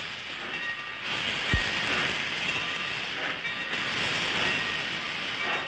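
Dubbed sound of a train running on the rails: a steady noise with faint high tones, and one brief low thump about a second and a half in.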